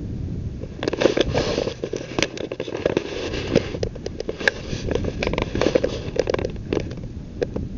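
Dry grass, twigs and dead leaves crunching underfoot in irregular crackling steps that start about a second in, over a low rumble of wind on the microphone.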